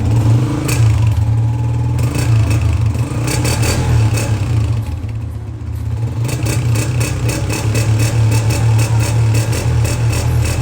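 Honda CG125 motorcycle's single-cylinder four-stroke engine, freshly rebuilt, running steadily for a sound check, with a light clatter on top of the exhaust note. The level dips briefly about halfway through.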